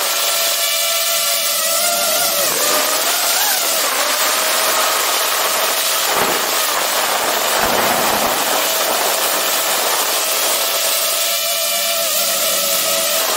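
DJI FPV quadcopter's brushless motors and propellers whining loudly up close in flight, the pitch shifting up and down with throttle, over a steady rushing hiss of air.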